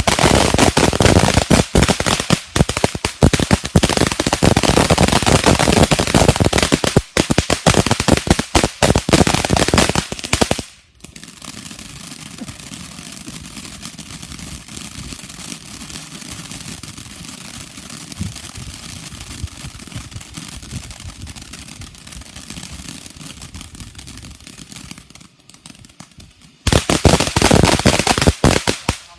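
Consumer firework cake firing rapid, overlapping bangs and crackles for about ten seconds, then stopping. After a quieter stretch of steady hissing noise, it starts firing rapid bangs again near the end.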